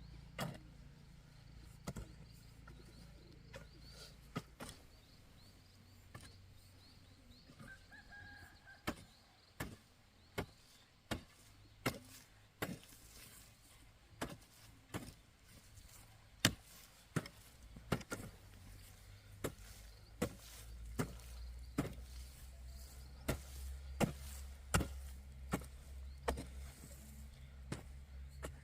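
Repeated sharp chopping strikes of a blade, coming irregularly at roughly one a second, with a faint low hum underneath in the second half.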